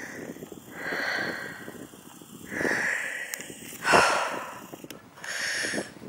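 A walker breathing hard and audibly, a run of separate breaths about a second or so apart, the loudest about four seconds in.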